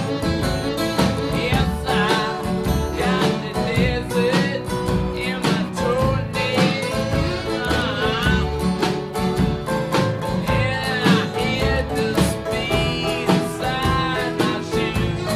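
Background music: a country-style song with guitar and a singing voice over a steady beat.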